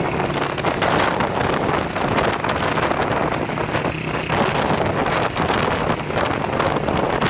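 Motorcycle engines running close by as the bikes ride along together, with heavy wind buffeting the microphone.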